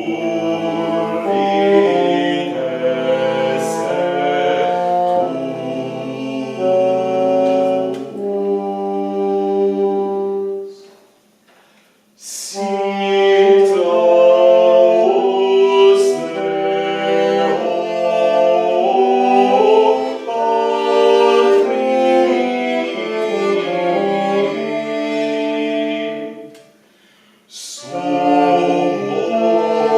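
A small early-music ensemble playing several held, interweaving melodic lines, in phrases that break off briefly about eleven seconds in and again near the end.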